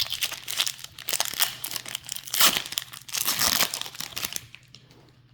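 A Pokémon card booster pack's foil wrapper being torn open and crinkled by hand: dense crackling that stops about four seconds in.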